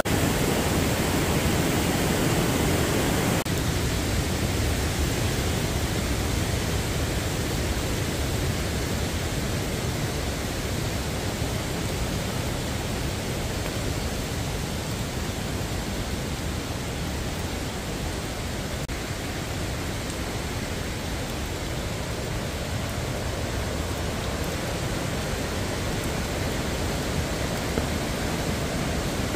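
Steady rushing of a mountain stream mixed with falling rain: an even, unbroken hiss of water.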